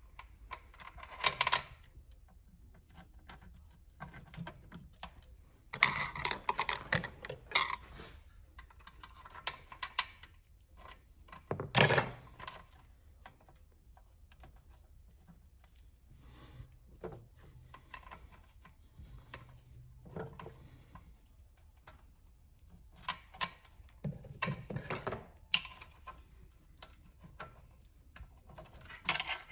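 Intermittent clinks, knocks and rattles of metal parts and hand tools being handled during repair work, with the loudest knock about twelve seconds in and busier clusters of clatter around six to eight seconds and again near twenty-five seconds.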